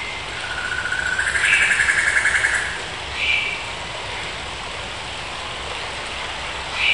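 Songbirds calling over the steady rush of a stream: a long, rapid trill from about half a second to two and a half seconds in, then short chirps about three seconds in and again at the end.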